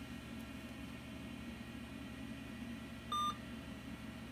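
A single short electronic beep from a 486 PC's speaker about three seconds in, over a steady low hum of the running computer. The beep comes as the OS/2 Warp setup fails to find its files on the CD-ROM and drops back to asking for the disc.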